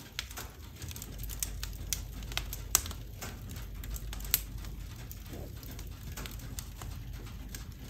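Split logs burning in the open firebox of a wood-burning stove, crackling with irregular sharp pops over a low steady rumble, a couple of louder pops a little under three seconds in and past four seconds.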